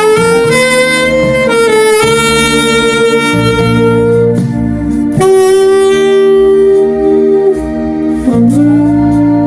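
Alto saxophone playing a slow melody in long held notes, several lasting two seconds or more, some scooped up into pitch, with a plain tone over a backing accompaniment.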